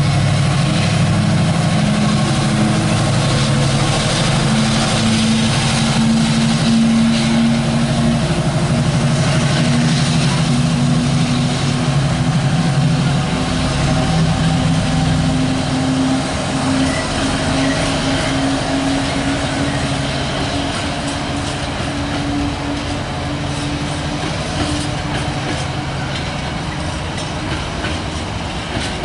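Freightliner Class 70 diesel locomotive working under heavy power as it hauls a train of container flat wagons away, its engine note climbing slowly and fading as it draws off, with the wagons rolling along the rails.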